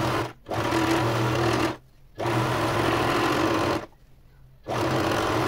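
Domestic electric sewing machine stitching, running in stretches of about a second and a half and stopping briefly twice as the hem is sewn.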